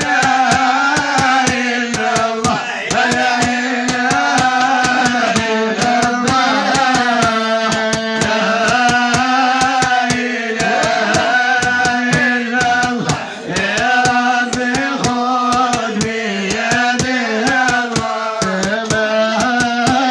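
A man singing a Moroccan Sufi madih (devotional praise song) into a microphone, his voice bending and gliding over a sustained low note, with quick sharp taps keeping a steady beat.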